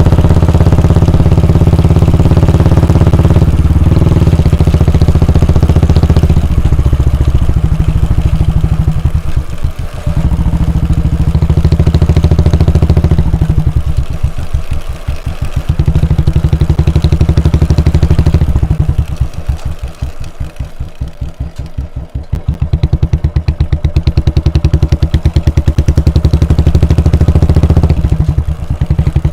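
Royal Enfield Bullet 350's air-cooled single-cylinder engine running, its revs rising and falling; several times it drops to low revs, where the separate exhaust thumps can be heard one by one.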